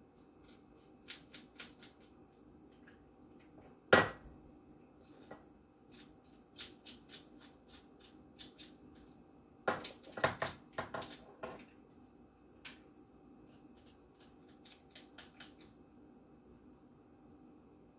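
Kitchen dishes and utensils being handled: scattered light clinks and clicks, one loud sharp clank with a short ring about four seconds in, and a quick run of clatter around ten to eleven seconds, over a faint steady hum.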